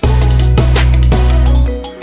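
Background music with heavy bass and a steady drum beat.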